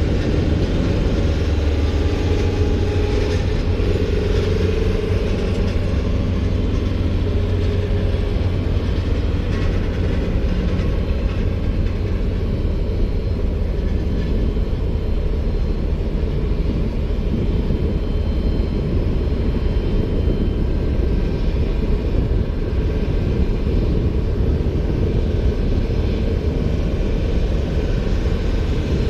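Steady rumble of a lavatory service truck's engine and pump running while it charges the aircraft's lav tank with 6 gallons of flushing fluid.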